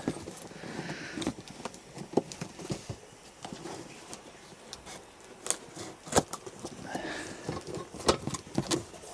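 A small box being opened and its contents unpacked by hand: scattered clicks and taps of cardboard and hard plastic parts, with light rustling of packaging.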